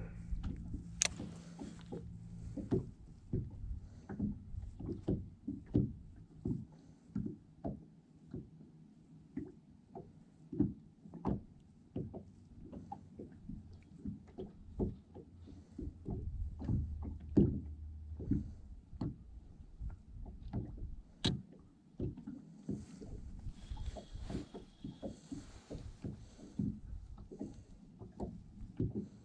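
Small waves slapping irregularly against the hull of a fishing boat, a steady run of uneven knocks and thumps with a few sharper clicks.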